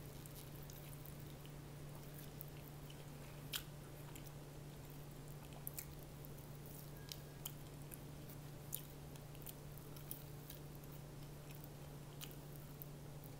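A person biting and chewing fried chicken, with scattered short crunches and clicks, the sharpest about three and a half seconds in, over a steady low hum.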